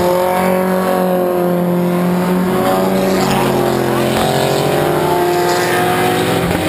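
Several sports cars passing through a bend at speed, their engines running hard at high revs with overlapping pitches that slide slowly up and down. The pitch of one engine changes abruptly about four seconds in.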